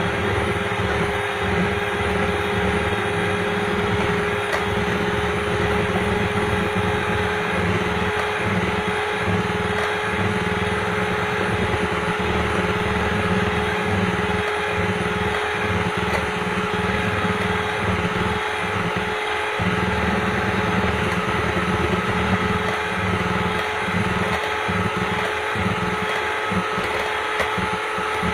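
Electric hand mixer running steadily at speed, its beaters whipping egg whites and sugar into meringue: a continuous motor hum with a steady whine.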